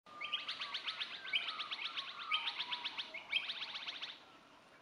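A bird calling: a fast, chattering series of high notes, with a rising note about once a second, repeated four times before it stops near the end.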